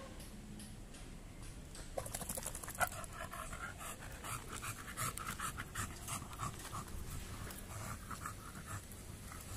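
American Bully dog panting hard and fast, the rapid breaths growing stronger about two seconds in. It is out of breath after only a short walk in the midday heat, a sign of the overweight dog's poor stamina.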